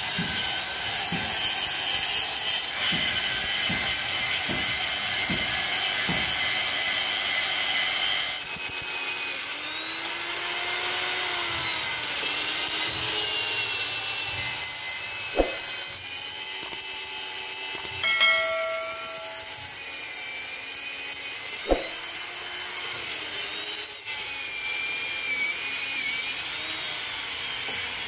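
Electric hand drill, held in a lever-and-chain press rig, boring holes through a steel truck chassis rail. Its motor whine sags and recovers again and again as the bit bites into the steel, with a couple of sharp metal clicks. For about the first eight seconds a harsher, noisier grinding sound is louder.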